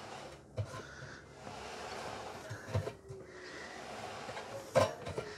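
Clothes dryer drum turned slowly by hand, its belt running over a newly fitted idler pulley: a faint steady rubbing, with a few soft knocks, the loudest about five seconds in.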